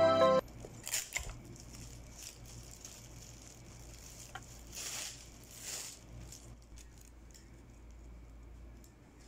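Background music cuts off just after the start; then faint rustling and light clicks of roses and foil-wrapped chocolates being handled and gathered into a bouquet, with a few louder rustles about a second in and again around five and six seconds in.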